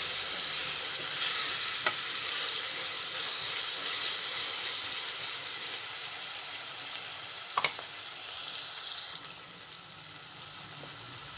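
Sliced onions sizzling in hot oil in a metal saucepan, stirred with a wooden spoon at first. The sizzle slowly fades, with a few light clicks.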